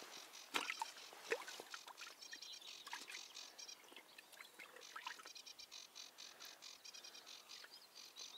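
Faint chorus of short, repeated trilling calls from wildlife around the pond, with a few sharp clicks in the first second and a half.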